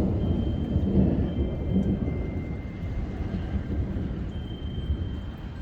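Low rolling thunder, loudest at the start and slowly dying away over several seconds.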